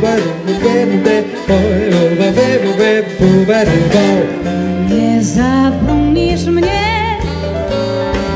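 Live salon orchestra of violins, brass, saxophones, double bass and keyboard accompanying a singer. The voice holds long notes with vibrato in the second half.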